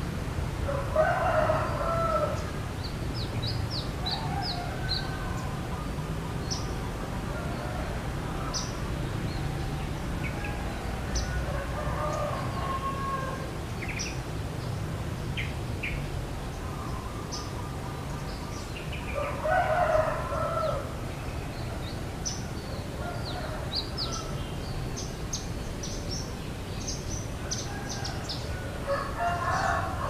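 A rooster crowing several times, roughly every ten seconds, each crow lasting a second or two. Small birds chirp in short high notes in between.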